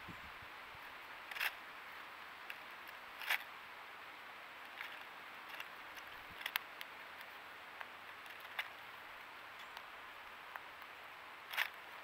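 Eastern gray squirrel cracking and chewing seeds in a tray feeder: short, sharp cracks every second or two over a steady hiss.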